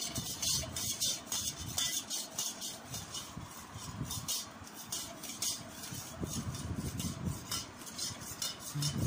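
A spoon stirring in a steel tumbler, mixing sugar into yogurt lassi, with quick irregular clinks and scrapes of metal on metal.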